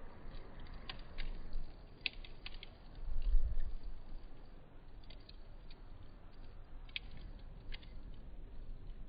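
Campfire crackling: scattered sharp pops and clicks over a low rumble, which swells louder about three seconds in.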